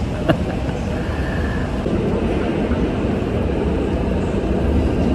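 Steady low rumbling background noise with a single short click about a third of a second in.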